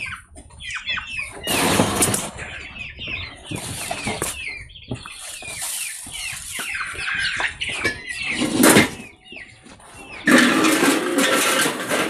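Chickens clucking and chirping, many short falling calls throughout. Several bursts of harsh rustling noise break in, the longest and loudest near the end.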